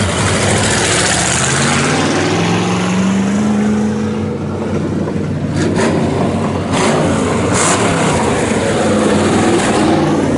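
Hobby stock dirt-track race cars running hard through a turn, the engine noise steady and loud, with one engine's pitch rising as it accelerates between about two and four seconds in.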